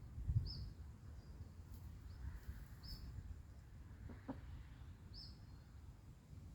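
A small bird chirping: a short, high chirp roughly every two to three seconds, three in all, over a low steady rumble of wind.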